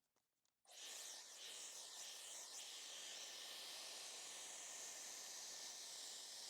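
Handheld hair dryer switched on less than a second in, then running steadily with a loud hiss of blown air.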